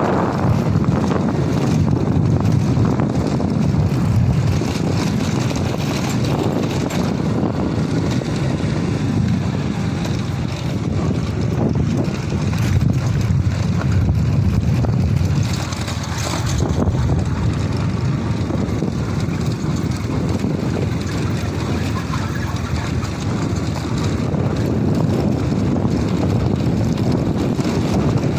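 Motorcycle running steadily along a rough, stony dirt track, its engine sound mixed with tyre rumble on the gravel and wind buffeting the microphone.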